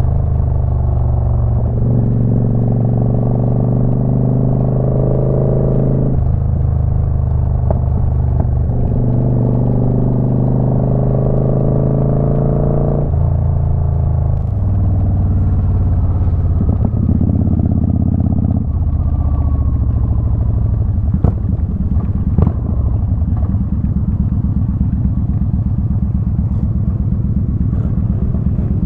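Motorcycle engine running under way. Its note holds steady for a few seconds at a time and then shifts up or down in steps. Two sharp clicks come a little past two-thirds of the way through.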